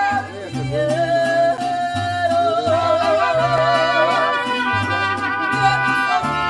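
Mariachi song: a woman singing a melody with wide vibrato and long held notes, over strummed guitar and a plucked bass line that changes note about once a second.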